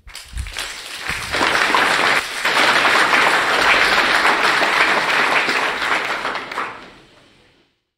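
Audience applauding: the clapping builds up over the first second or so, holds steady, then dies away near the end.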